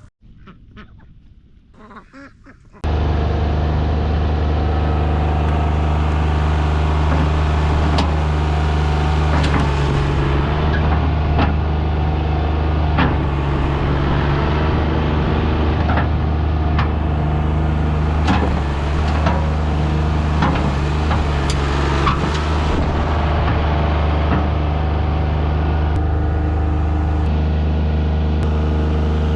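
Brief chicken clucking, then a sudden cut to a motor vehicle's engine running steadily, with a low hum and scattered knocks and clicks. It cuts off abruptly near the end.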